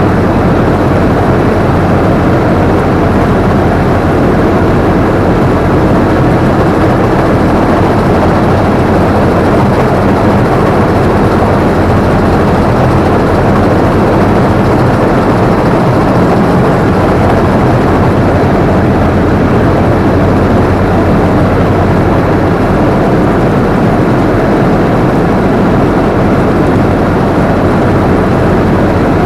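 BIMO combine harvester running steadily, heard from the operator's position: a loud, unbroken drone of engine and machinery.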